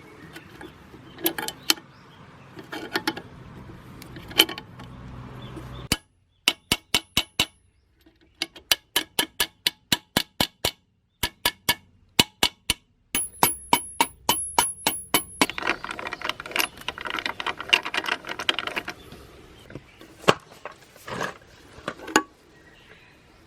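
Metal parts and hand tools clinking, tapping and knocking while a transmission is worked on. Near the middle comes a run of sharp, evenly spaced taps, then a denser clatter of metal pieces.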